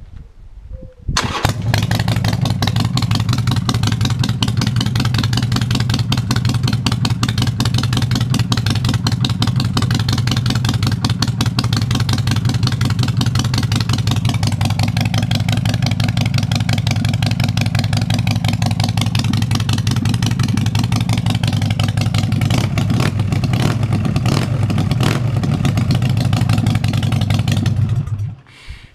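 Harley-Davidson Sportster Forty-Eight's air-cooled V-twin starting about a second in and then idling steadily through short aftermarket drag pipes, loud, until it is shut off near the end.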